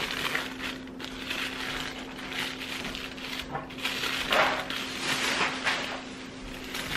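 Tissue paper rustling and crinkling in irregular bursts as a pleated paper fan decoration is handled and spread open by hand.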